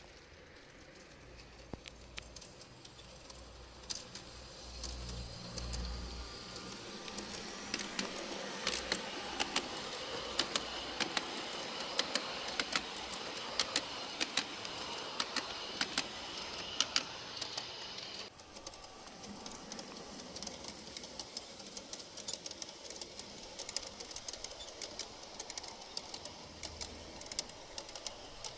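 LGB G-scale garden railway train running on its track, wheels clicking over the rail joints with a steady rattle. It grows louder as the train comes close, drops off abruptly about 18 seconds in, and goes on more quietly with scattered clicks.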